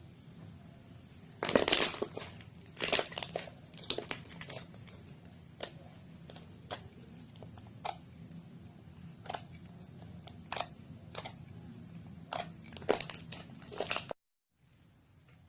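Slime being pressed and squeezed by hand, giving irregular crackles and pops that are loudest about a second and a half in and again near the end. The sound cuts off suddenly shortly before the end.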